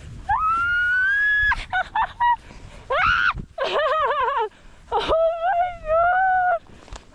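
A person whooping and yelling with delight while snowboarding through deep powder snow: about five high-pitched yells, some long and held, one with a quickly warbling pitch, with a low rush of wind and snow noise between them.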